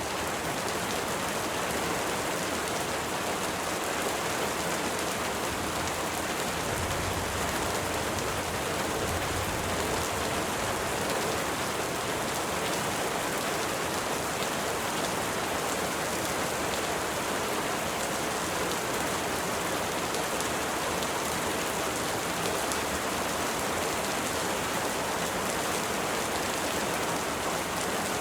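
Steady rain falling, an even, unbroken hiss of many drops with no pauses.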